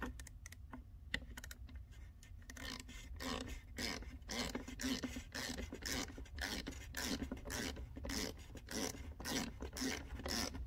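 Hand ratchet wrench being worked in quick back-and-forth strokes to tighten a fitting on a power steering pump: a few scattered clicks at first, then a run of ratchet clicks about two strokes a second.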